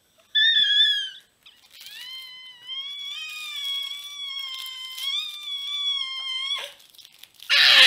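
Baby squealing: a short high squeal, then one long high-pitched squeal held for about five seconds that stops abruptly. A loud burst of noise comes near the end.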